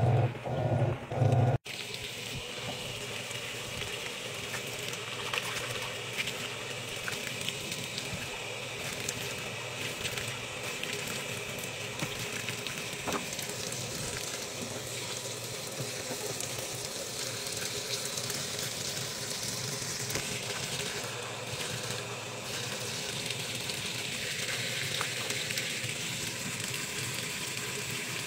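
Top-loading washing machine filling: a steady hiss of water spraying from the fill inlet onto the clothes in the drum. In the first second or so, before a cut, the machine agitates the load with a pulsing low hum.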